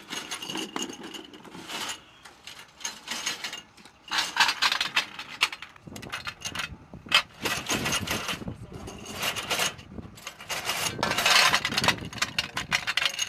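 Belt of linked 20 mm cannon rounds for an AH-1Z Viper clinking and rattling as it is handled and fed into the gun's ammunition bay, in irregular bursts of metallic clatter.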